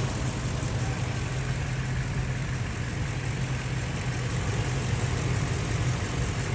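Ford truck engine idling steadily with an even low hum, running smoothly now that its carbon-fouled, sticking throttle body has been cleaned with carb cleaner.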